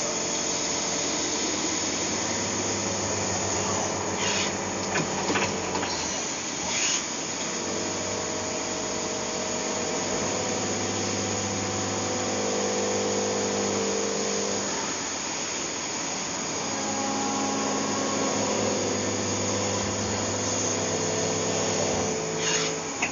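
CNC lathe running a turning cut: steady machining noise with a motor hum that shifts in pitch every few seconds, and a few sharp clicks about four to seven seconds in.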